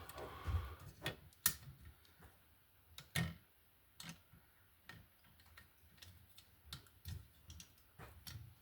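Irregular light clicks and taps of hands working an Ideal lever wire connector and copper ground wires, the loudest about a second and a half in and again at about three seconds.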